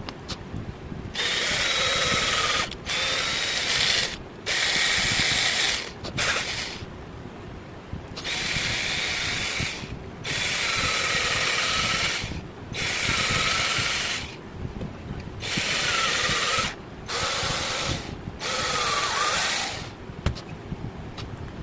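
Power drill run in about ten short bursts of one to two seconds each with brief pauses between, its motor pitch dipping and recovering within each run.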